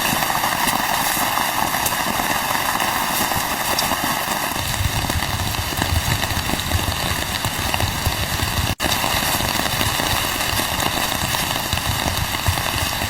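Steady rain falling, a continuous hiss, with a low rumble joining about four and a half seconds in. The sound drops out for an instant near the middle.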